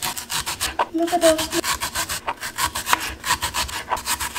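Kitchen knife slicing through a whole onion on a plastic cutting board: quick repeated cuts, about four to five a second.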